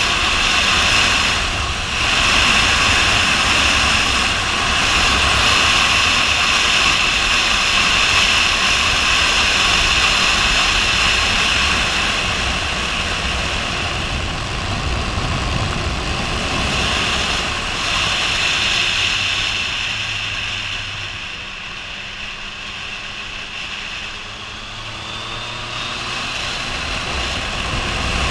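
Wind rushing past a helmet-mounted camera on a Yamaha MT-09 at road speed, with the bike's inline three-cylinder engine running underneath. About two-thirds of the way in the wind noise eases for a few seconds and the engine's pitched hum comes through more clearly.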